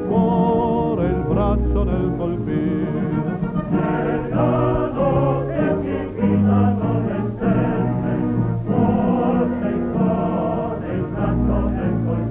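A choir singing a song in Italian over instrumental accompaniment, the voices held on long notes with vibrato.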